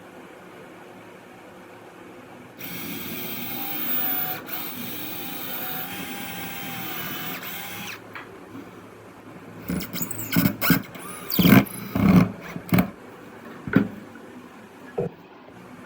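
Electric hand drill running steadily for about five seconds, then a series of sharp knocks and clatters.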